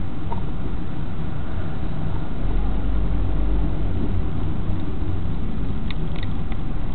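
Car engine and road noise heard from inside the cabin through a dashcam, a steady low rumble with a few faint clicks near the end.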